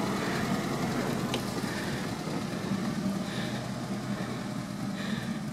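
Suzuki Samurai 4x4's engine running at low, steady revs as the vehicle crawls along a dirt trail.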